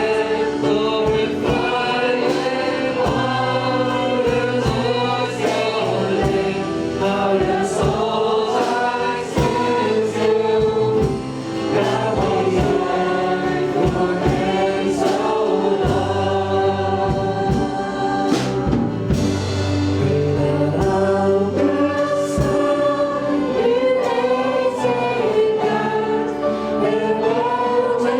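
Congregational worship song: a group of voices singing together over a band with a steady drum beat.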